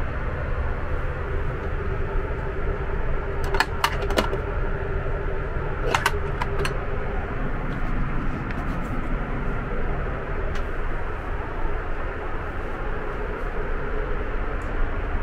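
Steady in-flight cabin noise of a Boeing 777-300ER, a loud airflow and engine rush with a faint hum, heard inside the aircraft lavatory. A few sharp clicks and taps of small items being handled come about four seconds in and again about six seconds in.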